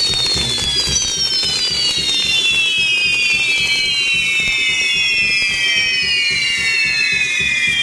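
Several fireworks whistles on the spinning wheels of a castillo fireworks tower shrilling together, each tone sliding slowly down in pitch as the wheels turn. Underneath runs a rapid low pulsing.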